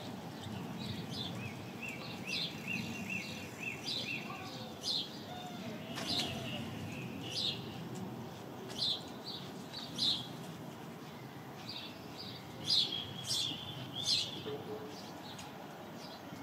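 House sparrows chirping: short, separate chirps throughout, with a quick run of about ten evenly spaced notes in the first few seconds and the loudest chirps a few seconds before the end. A low, steady background noise lies under them.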